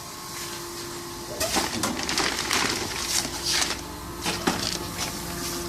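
Powder-filling machinery (auger filler and conveyor) running with a steady hum. About a second and a half in, a few seconds of irregular, hissy noise cover the hum before it returns.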